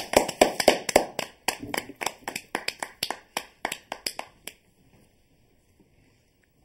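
A small group of people applauding, the claps thinning out and stopping about four and a half seconds in.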